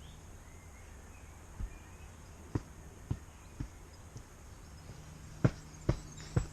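A series of sharp knocks on a hard surface. A few sit spaced out through the middle, then louder ones come about half a second apart near the end.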